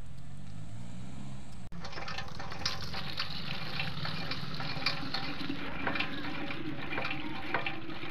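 Water from a hand pump splashing into a pot. The pitch slowly rises as the pot fills.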